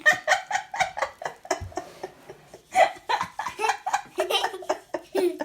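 High-pitched laughter in quick, repeated bursts, giggling rather than words.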